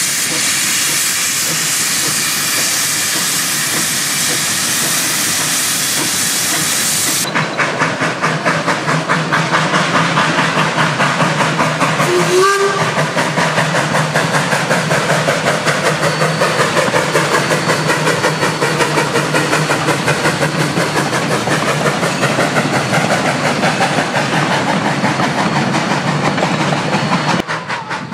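1877 Rogers K88 'Washington' steam locomotive, a 4-4-0, letting off a steady loud hiss of steam from its cylinder drain cocks for the first several seconds. Then it is chuffing in quick regular exhaust beats as it pulls its carriages, with one short whistle toot about twelve seconds in.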